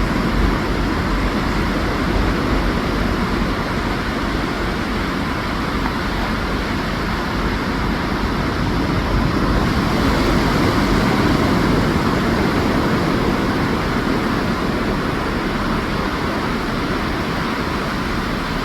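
Ocean surf washing onto a sandy beach: a steady rushing noise that swells a little about ten seconds in.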